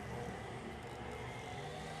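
A vehicle engine running steadily, a low hum with faint steady tones over it.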